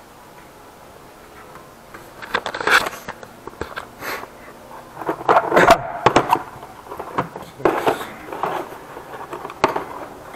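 Plastic tool cases being shuffled and lifted out of a metal tool box drawer: irregular scrapes and knocks, starting about two seconds in.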